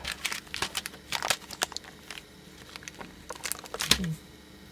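Small plastic packet crinkling as it is handled: an irregular run of sharp crackles, loudest about four seconds in.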